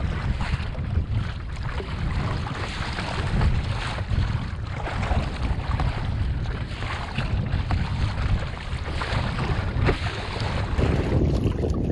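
Wind buffeting the microphone over choppy loch water, with waves slapping and splashing against the bow of a kayak being paddled into the chop.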